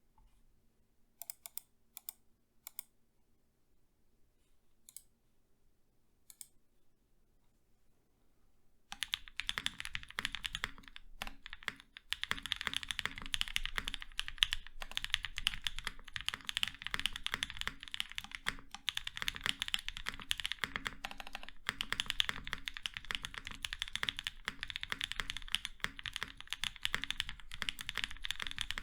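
Nascent 65% custom mechanical keyboard, leaf-spring mounted with an FR4 plate, Gazzew Boba LT 68g switches, TX stabilizers and GMK keycaps, being typed on. A few single keystrokes come first, then steady fast typing starts about nine seconds in.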